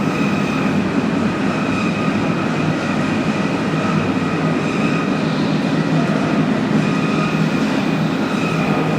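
Steady mechanical running noise with a faint high whine held throughout.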